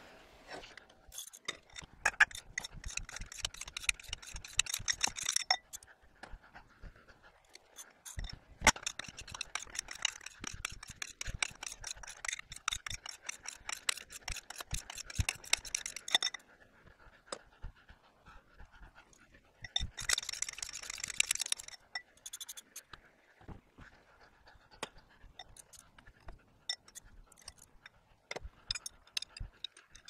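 Socket wrench ratchet clicking rapidly in three runs, the longest about eight seconds, as nuts are spun off rusted 3/4-inch bolts on an old steel plow frame. Scattered single clicks of metal fall between the runs.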